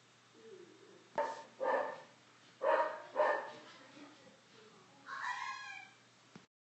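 A dog barking four times in two quick pairs, then a longer, higher-pitched yelp near the end.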